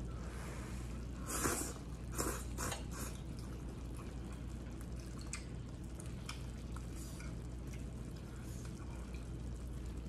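Close-up eating sounds of glass noodles: a few short wet slurps and chewing about one and a half to three seconds in, then scattered light clicks of chopsticks against a plate. A steady low hum runs underneath.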